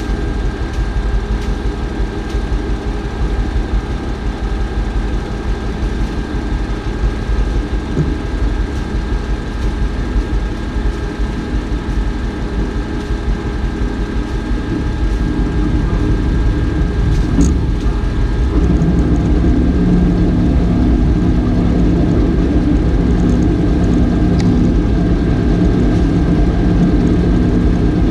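Off-road 4x4's engine running steadily, then rising to a louder, steady higher-revving note about two-thirds of the way through.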